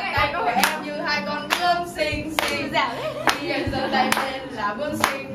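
Voices singing together with six sharp hand claps keeping the beat, a little under a second apart.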